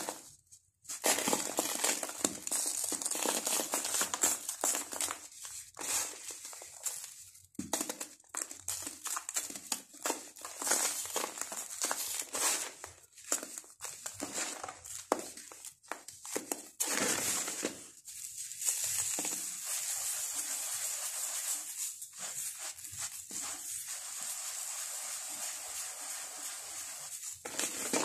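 Hands crumbling dry, soft lumps of sand-cement mix: a dense, crackly crunching made of many small snaps, stopping briefly now and then. From about two-thirds of the way through it gives way to a steadier gritty hiss of the crumbs rubbing and sliding on paper.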